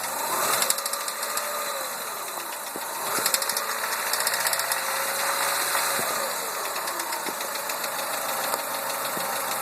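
Chrysler PT Cruiser engine running with a rapid knocking tick, which gets louder twice, about half a second in and again about three seconds in. The owner takes it for engine knock.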